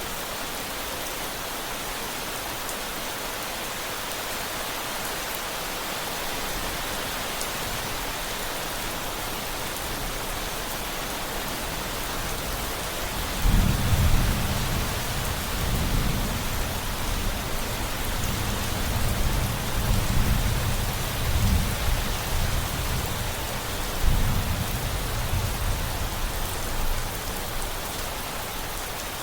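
Steady rain hissing; about halfway through, thunder breaks in suddenly and rolls on in several low swells for over ten seconds before dying away under the rain.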